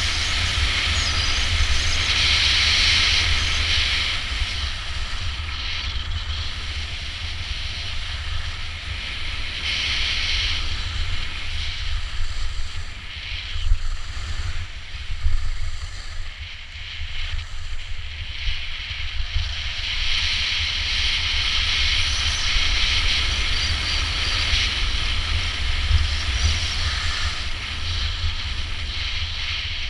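Wind buffeting the microphone, with the hiss of skis scraping over snow that swells and fades several times.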